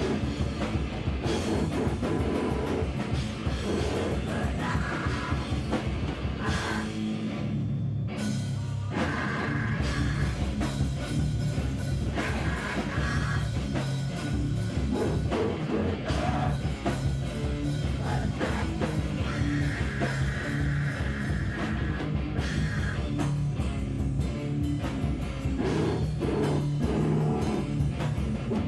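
A loud live rock band playing: distorted guitar, bass and a drum kit pounding steadily, with two short breaks in the high end about seven and eight seconds in.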